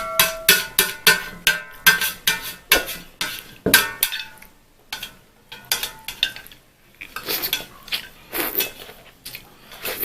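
Metal cutlery clinking and scraping against a dish while eating, in quick irregular strikes, thinning out to a lull for a couple of seconds midway before picking up again.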